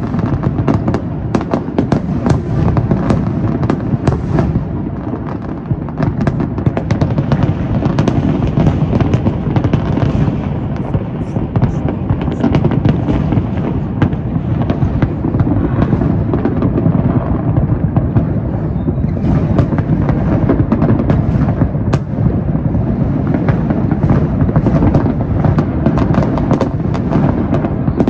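A large aerial fireworks display in full barrage: a continuous run of overlapping booms from bursting shells, packed with sharp reports and crackle, with no pause.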